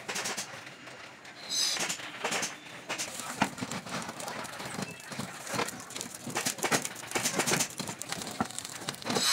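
Irregular clicks and crackles from a whole pig roasting on a spit over charcoal, with a short louder hiss about one and a half seconds in.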